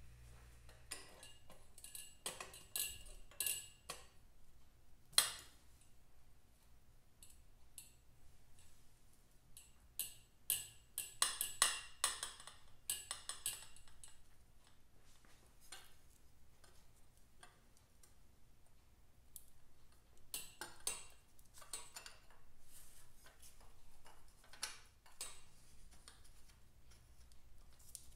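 Light metallic clicks and clinks of chrome exhaust header pipes and their fittings being handled and fitted to a motorcycle engine, in scattered clusters; the sharpest single clink comes about five seconds in.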